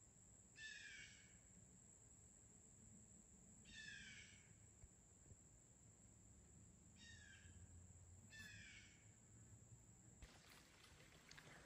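Faint bird calls far off: four short calls spread over several seconds, each falling slightly in pitch, over a faint steady high whine that stops near the end.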